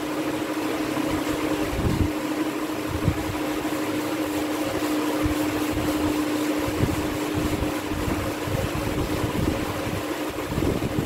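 Cloth duster rubbing across a chalkboard as it is wiped clean, in irregular strokes over a steady room hum.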